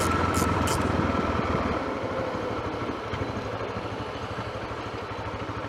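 Motorcycle engine running, dropping to a quieter, steady idle about two seconds in.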